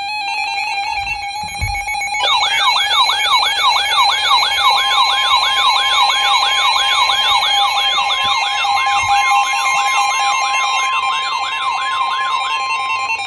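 Emergency alert tones from weather alert radios: a steady electronic alarm tone, joined about two seconds in by a siren-like tone sweeping up over and over, a little more than twice a second, until just before the end.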